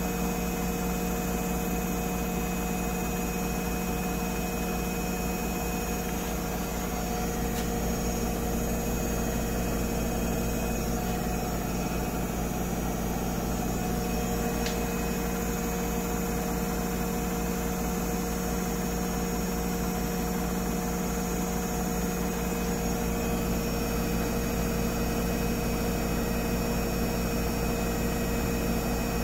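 GE GFW850 front-load washer in its spin cycle: a loud, steady, turbine-like whine of several held tones over a low hum.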